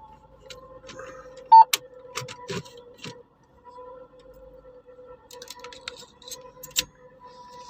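A car's dashboard warning chime repeating rapidly as a steady pulsing tone, with scattered clicks and knocks from handling the key and steering column, one sharp knock about one and a half seconds in.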